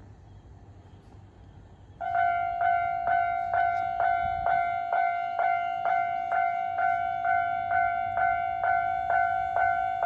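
Japanese railway level-crossing alarm starting up suddenly about two seconds in and ringing a steady, evenly repeated ding about twice a second, which signals that a train is approaching and the crossing is closing.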